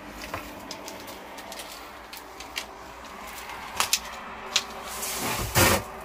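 Low background hiss with a few faint scattered clicks and knocks, then a louder brief scuffing noise near the end.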